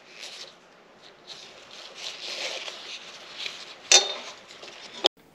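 Faint handling noise as a clear plastic fuel tube on a motorcycle carburetor's float bowl drain is lowered to empty it of fuel, with a sharp click about four seconds in and a smaller one near the end.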